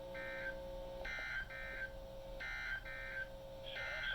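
NOAA Weather Radio EAS/SAME end-of-message data bursts: a string of short, buzzy digital chirps, several coming in quick pairs, over a steady low tone. They mark the close of the weekly test alert.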